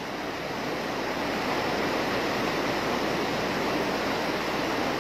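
Flash-flood torrent rushing down a street: a steady roar of fast-moving floodwater.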